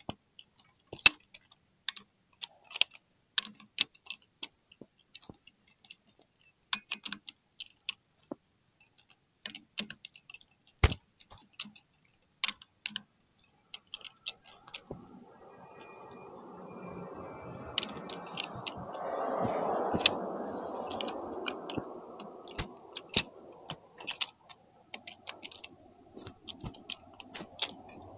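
Scattered sharp clicks and clinks of a socket wrench on the clutch spring bolts of a Royal Enfield Interceptor 650, as the low-torque 10 mm bolts are backed out a little at a time. A soft rushing noise swells and fades over several seconds near the middle.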